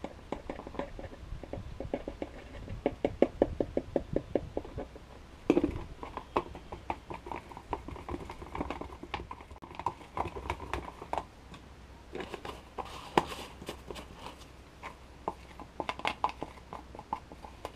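A plastic mixing stick scraping and clicking quickly against the sides and bottom of a plastic cup while stirring epoxy thickened with colloidal silica filler. The clicks come in fast runs of several a second, with short pauses between them.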